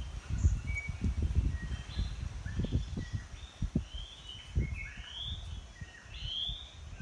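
Birds chirping in woodland, with a short rising chirp repeated several times in the second half. Beneath them come irregular low knocks and rustling as sticks are pushed into a small campfire.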